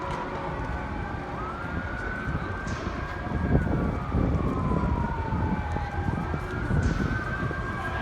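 Fire truck siren on a slow wail: the tone climbs, holds high for a second or two, slides slowly down and climbs again, over a steady low rumble of engine and traffic. A short knock sounds about halfway through.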